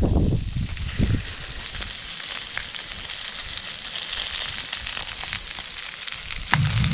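Salmon and mixed vegetables sizzling in a steel pan over a small wood-fired stove, an even hiss with a few faint crackles. A low rumble sits under it for the first second or so and comes back near the end.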